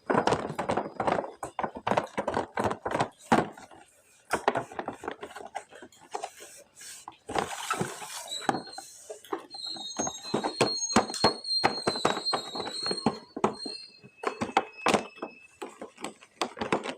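Plastic toys and packaging being handled and unboxed: a quick run of clicks, taps and rustles, with a high, wavering squeak lasting several seconds about halfway through and a shorter steady tone near the end.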